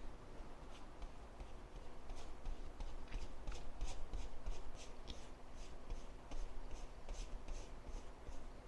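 Paintbrush strokes on a painting surface: short, quiet, scratchy brushing sounds about two or three times a second.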